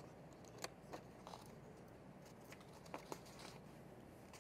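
Near silence: room tone with a few faint, brief clicks.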